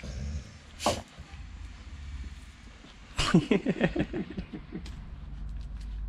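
A dog barking in a quick run of short barks, about eight in under two seconds, starting about three seconds in. A single sharp knock comes a second earlier.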